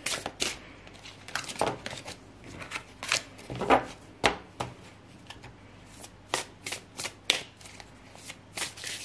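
A deck of large oracle cards shuffled by hand, the cards sliding and snapping together in irregular quick strokes.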